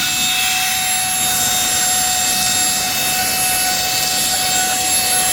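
ONAVOT cordless handheld vacuum running steadily: a constant motor whine over the rush of air through the nozzle.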